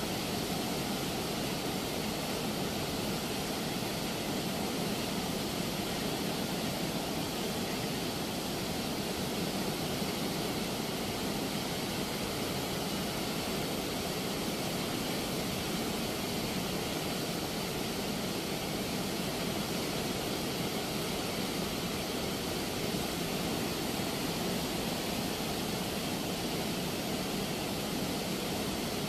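Steady rushing of muddy river water pouring through the open sluice gates of a barrage weir and churning below it.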